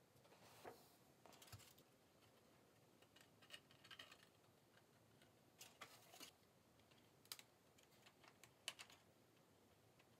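Faint, irregular light clicks and taps of thin-walled 3D-printed lightweight-PLA fuselage parts being handled and pressed together.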